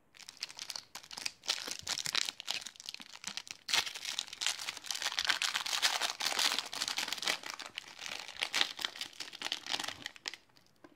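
Foil-lined energy-bar wrapper being torn and peeled open by hand, crinkling and crackling almost without a break for about ten seconds, busiest in the middle.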